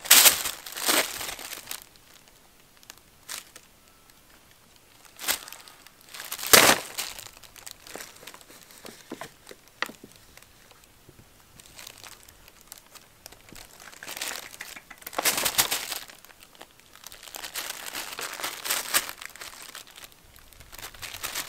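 Tissue paper crinkling and rustling in irregular bursts as two cats scrabble and pounce in it, the loudest bursts at the very start, about a third of the way in and again past the middle.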